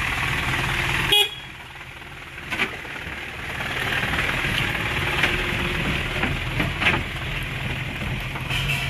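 Isuzu tipper truck's engine running steadily with a low hum. A short horn toot about a second in is the loudest sound.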